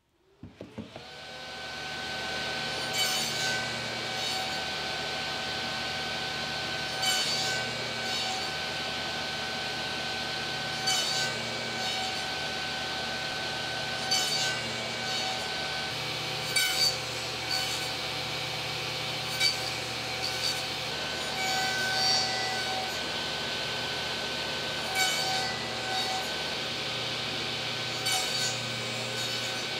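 Table saw motor spinning up, then running steadily while box joint slots are cut through stacked plywood, the blade biting louder about every three seconds as the jig is pushed through.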